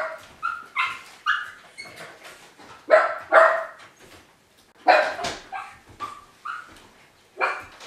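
Miniature pinscher barking while left alone in the house: a dozen or so short, sharp barks and high yips in bunches, the loudest at the start and about three and five seconds in.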